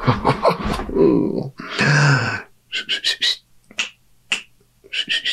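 A loud, drawn-out voice-like sound that slides in pitch, then a run of sharp finger snaps, some in quick groups, about half a second apart.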